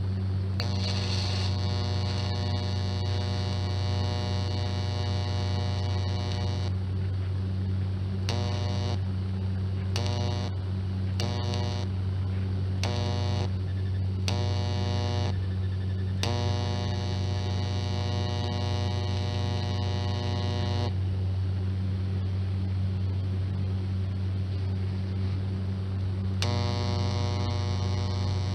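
Electric welder buzzing, with a steady mains hum under it and the arc's buzz switching on and off: a long run for the first several seconds, a string of short strikes of about a second each, another long run, and one more near the end, as the cracked muffler is welded.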